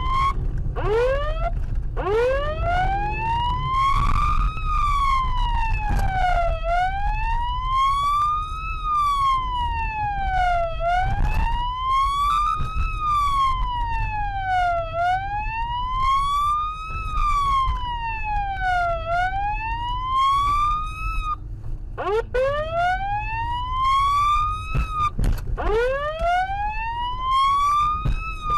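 Emergency vehicle siren wailing: a slow rise and fall in pitch, about one cycle every four seconds, restarting from a low pitch a few times. Low engine and road rumble runs underneath.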